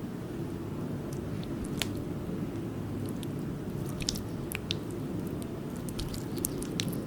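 Homemade slime squished and pulled by hand, giving scattered small sticky clicks and pops, most often in the second half, over a steady low background noise.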